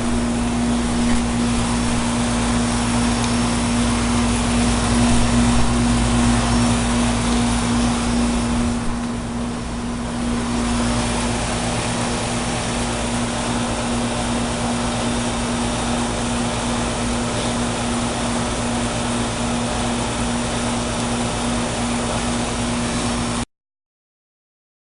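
Residential heat pump outdoor unit running in heat mode: a steady compressor hum under the even rush of the condenser fan. It cuts off abruptly near the end.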